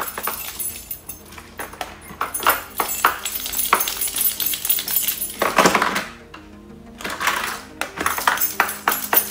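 A metal car key scraping and clicking in short irregular strokes across an iPhone's Ceramic Shield glass screen, with background music. The key slides over the glass without marking it.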